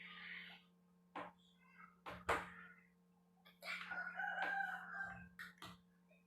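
A rooster crows once, a drawn-out call lasting about a second and a half, starting nearly four seconds in. It comes after a few short, sharp clicks.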